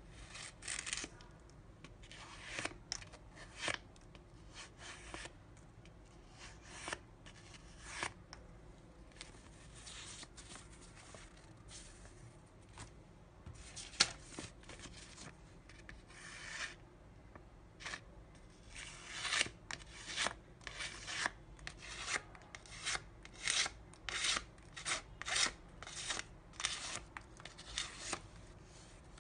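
A sharp 9Cr18MoV steel knife blade slicing through sheets of paper: a series of short, crisp swishing cuts at irregular intervals, coming faster in the second half.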